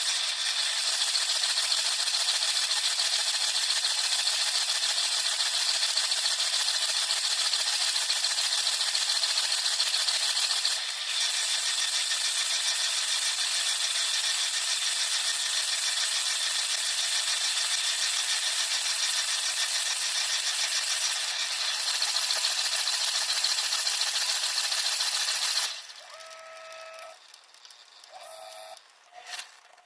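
Dishwasher spray jets pelting water against a camera inside the running machine: a loud, steady hiss of spray with a pattering rattle. Near the end it cuts off suddenly to a much quieter sound with a few short tones.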